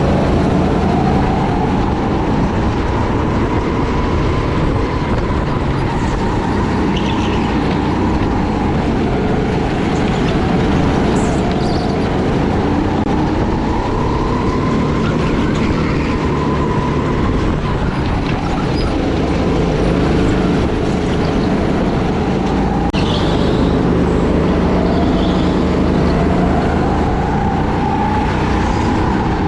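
Jet ski engine running steadily, its pitch rising and falling slowly as the throttle and load change, over a constant rush of noise.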